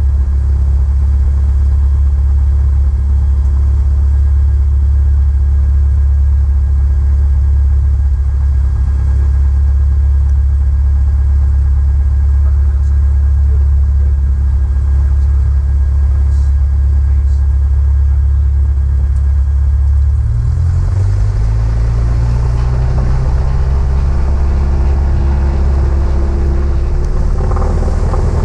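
Cessna 172's piston engine and propeller running with a steady drone. About two-thirds of the way through, the engine note steps up in pitch and grows fuller as power is added.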